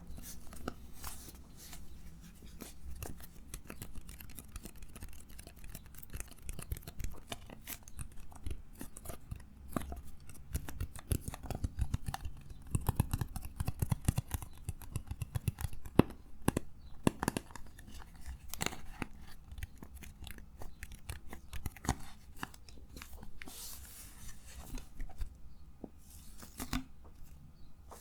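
Close-miked crackling and clicking from something being handled, a dense run of small irregular clicks that grows busier in the middle, with one sharper click about two-thirds of the way through.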